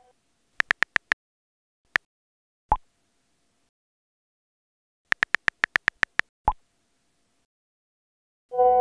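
Phone keyboard clicks as a message is typed, then a short pop as it is sent; this happens twice, a few taps then a quick run of about nine. Near the end a ringing message-alert chime begins.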